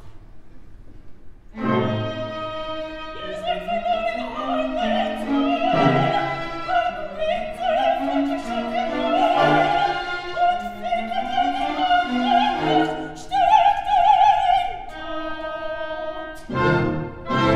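Opera: an orchestra accompanying a woman's singing voice. It comes in about a second and a half in after a quieter start, and near the end it breaks off into a louder new passage.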